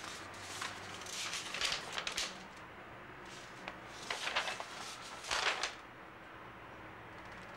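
A sheet of paper rustling as it is unfolded and handled, in three short spells.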